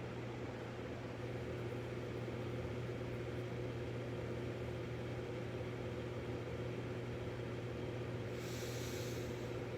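Steady low mechanical hum of background noise, with a brief soft hiss near the end.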